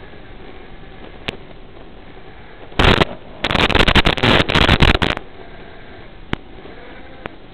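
Steady hiss from an analog FPV video receiver's audio feed, breaking into loud crackling static twice: briefly about three seconds in, then for nearly two seconds. The static comes as the quadcopter's video signal breaks up. A few single sharp clicks are also heard.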